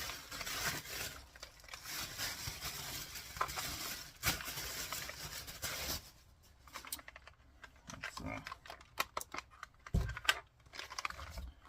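Packaging crinkling and tearing as a top-handle chainsaw is unwrapped for about six seconds, then scattered clicks and knocks as the saw is handled.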